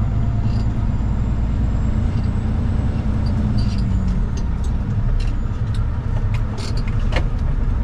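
Peterbilt 379 semi truck's diesel engine and road noise heard from inside the cab, a steady low rumble, with scattered light clicks and rattles.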